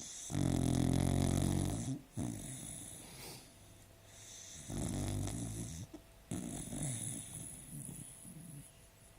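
A sleeping dog snoring: three long snoring breaths, the first the loudest.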